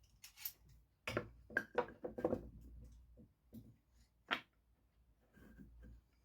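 Handling noises: a run of light knocks and scrapes clustered between one and two and a half seconds in, then one sharper knock a little past four seconds, with no saw running.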